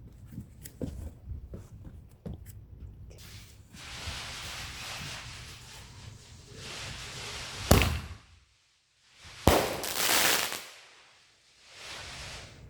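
Consumer fireworks going off: a steady hiss, then two sharp bangs about two seconds apart. The second bang is followed by about a second of loud hissing that fades away.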